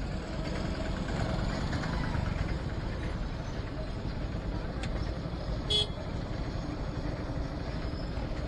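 Steady low rumble of motor vehicles on the road, with one short, high vehicle horn beep about two-thirds of the way through.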